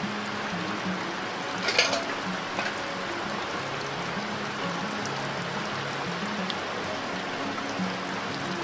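Steady hiss of water noise over a soft music track whose low notes change every half second or so. A single sharp crack about two seconds in.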